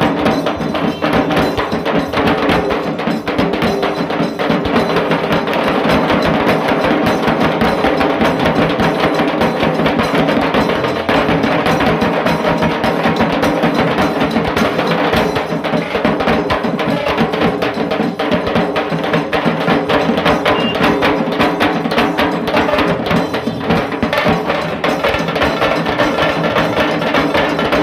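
A dhol tasa band drumming at full volume: dhol drums and tasa kettle drums beaten with sticks in a dense, fast, unbroken rhythm.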